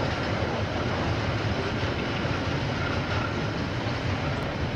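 KiwiRail freight train's container wagons rolling past, a steady noise of wheels on the rails, strongest in the low end.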